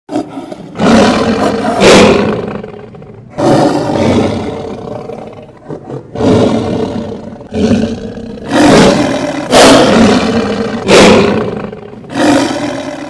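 Tyrannosaurus rex roar sound effects, a string of about ten loud, long roars one after another, each starting suddenly and fading before the next.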